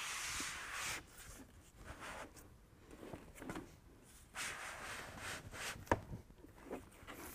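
Soft-top fabric rustling and a plastic edge bead scraping as the duster's P-extrusion is slid by hand into the channel of the tailgate bar, in two spells of a second or so. A single sharp click comes late on.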